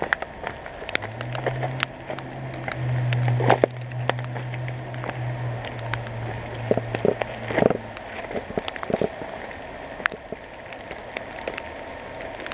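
Footsteps crunching through fallen branches and leaf litter, with twigs snapping and leaves brushing. A low steady hum runs underneath from about a second in until it stops near eight seconds.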